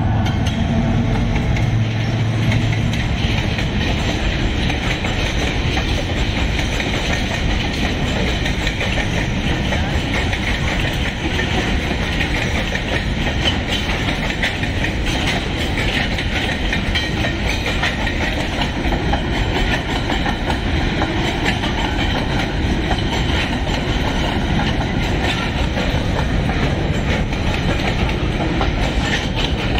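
Freight train rolling steadily past, its wagon wheels clicking and clattering over the rail joints. A low engine drone is mixed in during the first few seconds.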